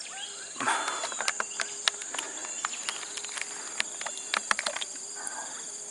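Insect chorus in vegetation: a steady, continuous high-pitched buzzing, with many sharp ticks scattered throughout.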